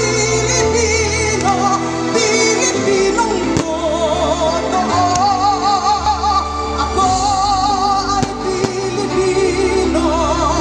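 A song playing: a singer holds long notes with wide vibrato over steady bass notes.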